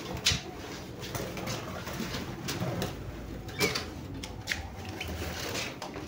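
Budgerigars chirping in a breeding cage, with scattered knocks and scrapes as the cage's wooden cover board is handled.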